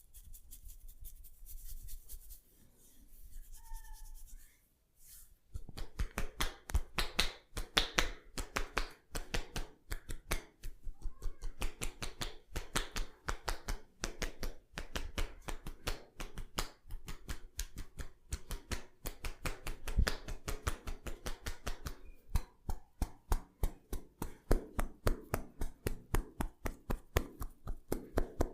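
Rapid, even percussive hand taps of a head massage, several strokes a second, starting about five seconds in after faint rustling.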